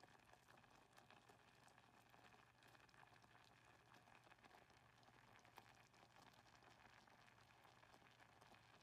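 Strawberry jam boiling thickly in a pot: faint, frequent small pops and bubbling from the surface.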